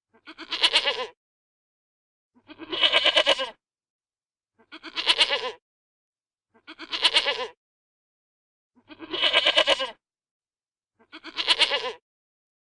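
Goat bleating: six separate bleats about two seconds apart, each a quavering call under a second long.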